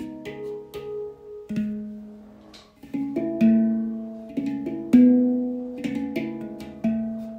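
Instrumental background music: single pitched notes struck one after another, each ringing and fading, a couple per second.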